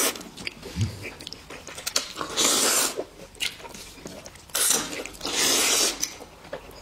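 Noodles being slurped from chopsticks in a few long, loud sucking slurps, with chewing and small mouth clicks between them.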